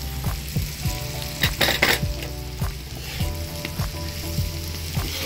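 Onions, chillies and red bell pepper sizzling in butter on a hot iron dosa griddle while a metal spoon stirs them, with frequent small clicks of the spoon on the pan. The hiss swells louder briefly about one and a half seconds in.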